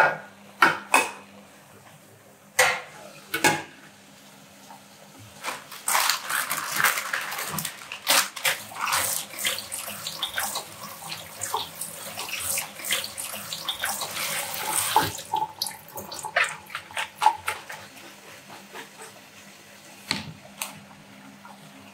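A few short clicks, then a kitchen tap running onto basil leaves being rinsed by hand in a plastic colander. The water stops about two-thirds of the way through, leaving scattered taps and drips as the colander is shaken out.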